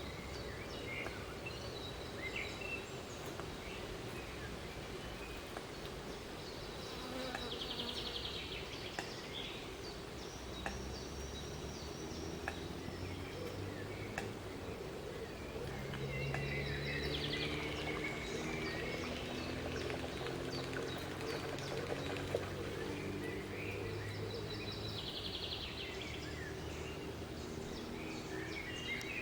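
Outdoor pond ambience: a low droning hum that shifts in pitch now and then, under scattered short bird chirps and trills.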